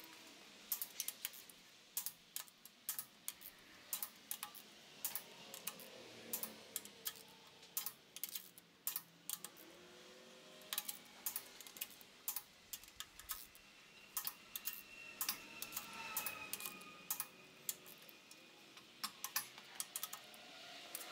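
Torque wrench clicking as cylinder head bolts are tightened through the torque sequence: short runs of sharp ratchet clicks, a few a second, with pauses between bolts.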